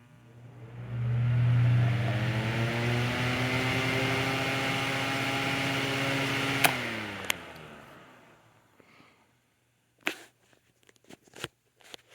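Holmes Blizzard fan's small C-frame shaded-pole motor starting on medium speed, heard right up against the motor: a low hum with a whine that rises in pitch as the fan spins up, then runs steady. About six and a half seconds in there is a click, and the whine drops in pitch and fades as the fan spins down. A few light clicks come near the end.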